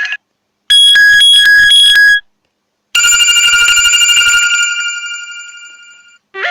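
Two short Samsung Galaxy J7 Pro ringtones played one after the other. The first is a quick run of bright electronic beeping notes lasting about a second and a half. After a brief silence, the second is a bell-like chime that rings and fades away over about three seconds.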